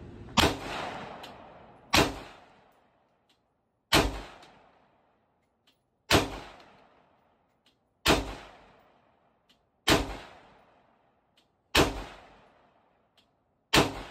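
AR-15 pistol chambered in 5.56 firing eight slow, deliberate single shots, about one every two seconds, each loud crack followed by an echo dying away.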